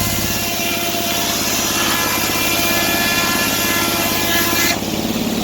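Sawmill engine running under load while the blade cuts through wood, a high hissing whine over the engine that cuts off abruptly near the end as the cut finishes.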